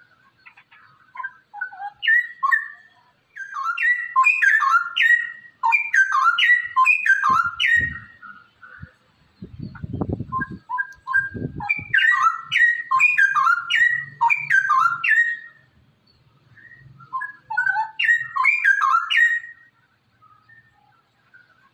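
Straw-headed bulbul (cucak rowo) singing: loud, rich whistled phrases of quick rising and falling notes, in three bursts with short pauses between. A low rumble with thumps comes under the song about a third of the way through.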